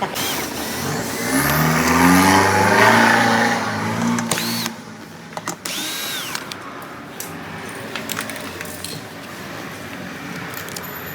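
A motor vehicle passing by, its engine note swelling for a few seconds and then fading, followed by a quieter background with a few light clicks.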